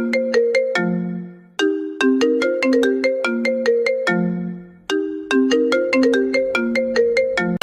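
Mobile phone ringtone playing: a short melody of struck, bell-like notes that repeats about every three seconds, with a brief pause between repeats.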